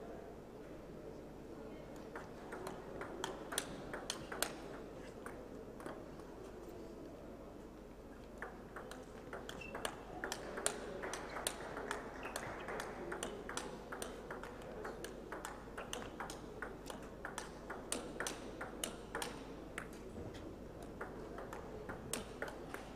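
Table tennis ball clicking back and forth off bats and table in a steady rally, several hits a second, over a low hall murmur: a short exchange early on and a long knock-up rally from about eight seconds in to near the end, the warm-up before the first game.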